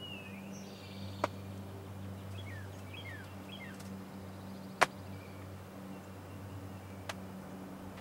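Small songbirds chirping with short, mostly falling calls over a steady low hum, broken by three sharp clicks, the loudest about five seconds in.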